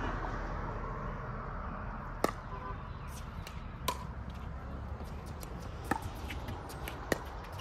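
Pickleball paddles striking a hard plastic pickleball in a doubles rally: four sharp pops about one and a half to two seconds apart, starting about two seconds in, with fainter ticks between them.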